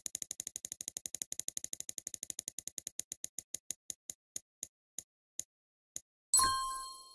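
Spinning prize-wheel sound effect: a rapid run of ticks that slows gradually to about one a second as the wheel winds down, then a bright chime that rings and fades once it stops.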